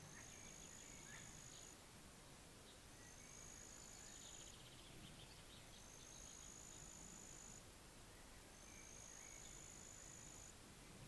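Faint pondside ambience: an insect trilling in high, even bursts of about one and a half to two seconds, four times, each roughly three seconds apart, with faint scattered bird chirps.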